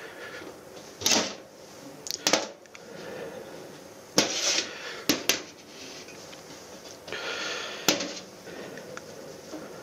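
Handling sounds at a stainless steel sink: a metal gooseneck kettle and a cup are set down and moved, giving about six sharp knocks and clatters, with a short rustling hiss about seven seconds in.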